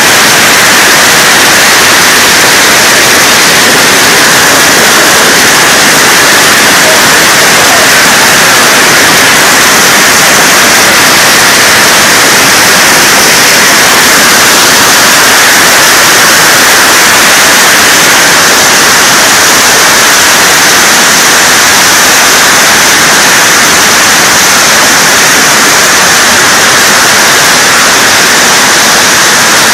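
Marble-sized hail pelting a bare tin roof with its fiberglass insulation stripped out, a crazy loud, unbroken din.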